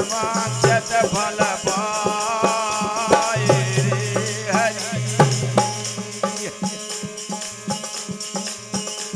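Instrumental passage of a Bundeli tamura bhajan: a melodic lead line with sliding notes over a steady rattling percussion beat and low sustained bass tones.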